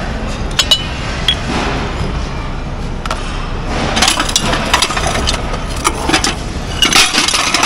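A steady low rumble runs throughout, with sharp clinks and rustling as discarded glass and ceramic kitchenware is picked through and handled. The loudest clinks come just under a second in and again about seven seconds in.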